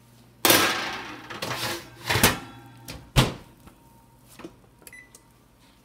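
Oven door and baking pan being handled: a loud clattering rush about half a second in that fades over about a second, then two sharp knocks about a second apart, and a few faint clicks.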